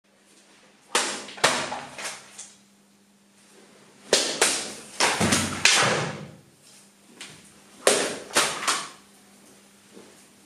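Japanese swords cutting through a rolled mat target in three quick flurries, about a second, four seconds and eight seconds in, each flurry three to five sharp swish-and-slice strikes.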